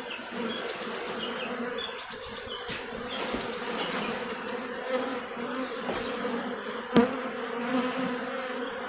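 Swarm of honeybees buzzing as a steady hum, the bees freshly scooped into a box. A sharp click about 7 seconds in.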